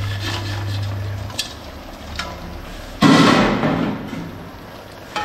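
Jaggery being tipped into a large pot of boiling tamarind water: a few light knocks, then a loud, sudden splash and clatter past the middle that fades over about a second.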